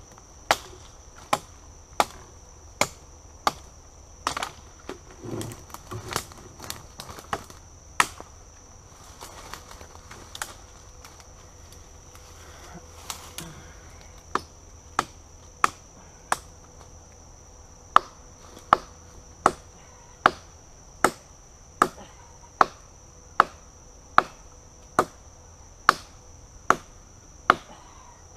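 Glock 78 field knife's 6.5-inch steel blade chopping into a rotten fallen tree trunk: a regular run of sharp strikes about one every three-quarters of a second, broken by a pause of a few seconds about a third of the way in.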